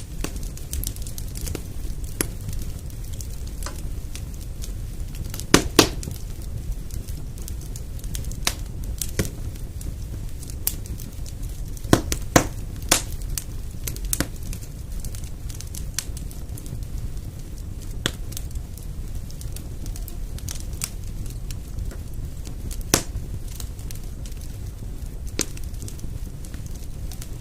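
Fireplace fire crackling: scattered sharp pops and snaps over a low steady rumble. The loudest pops come in small clusters about six seconds in and again about twelve seconds in.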